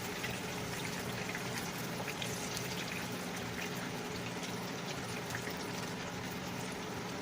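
Hot frying oil sizzling steadily in the pan, with fine crackles and a low steady hum underneath.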